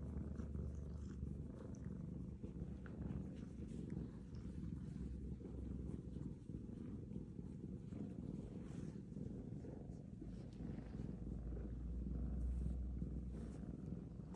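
Domestic cats purring steadily while being stroked by hand: a continuous low rumble.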